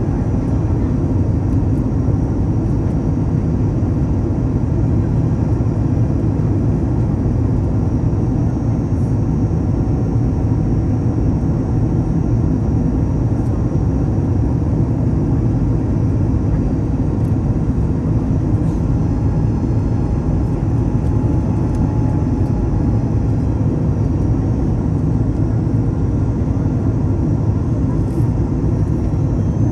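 Steady cabin noise of a Boeing 737 MAX 9 in descent, heard inside the cabin at a window seat over the wing: a low rumble of airflow and its CFM LEAP-1B engines, with a faint high whine on top.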